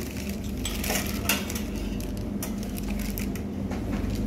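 Dishes and cutlery clinking: a few scattered short clicks and clatters over a steady low hum.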